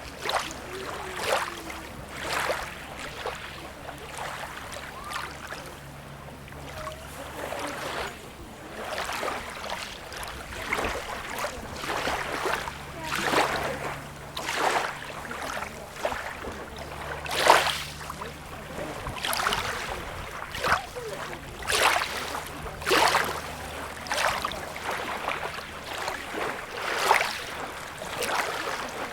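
Small sea waves lapping and slapping at the water's edge, a short splash about every second over a steady wash of water, with a faint low hum underneath.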